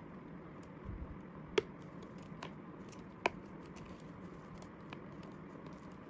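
JBL Go portable speaker being handled as its grille cover is pressed back onto the case: two sharp clicks about a second and a half apart, with a few fainter ticks and rustles.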